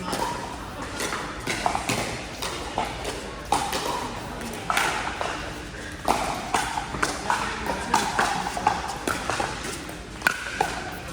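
Pickleball paddles striking the hollow plastic ball: sharp pops in quick, irregular succession, with some faint voices.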